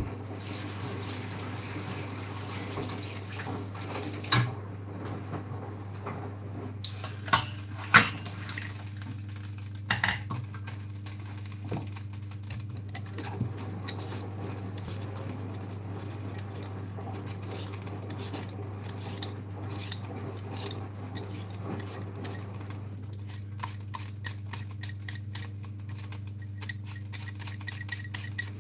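Kitchen clatter of utensils and dishes, with a few sharp knocks in the first ten seconds. Then a hand-held peeler scrapes a potato in quick repeated strokes, over a steady low hum.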